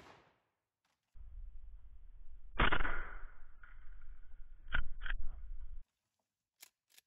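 A single shotgun shot about two and a half seconds in, with a ringing echo through the woods, followed a couple of seconds later by two sharp loud clacks about a third of a second apart. A low steady rumble runs under it and cuts off suddenly.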